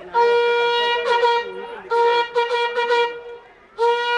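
Traditional Naga horn blown in three long blasts at one steady pitch, the second with a slight wavering pulse and the third starting near the end.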